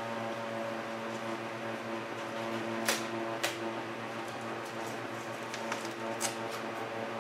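A large vinyl decal sheet and its backing paper crackling a few times as they are handled and peeled, over a steady electrical hum.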